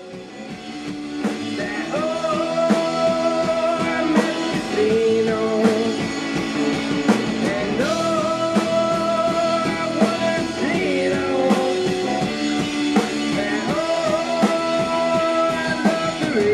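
Rock band playing a song: held sung vocals over electric guitar and a drum kit, fading in over the first couple of seconds.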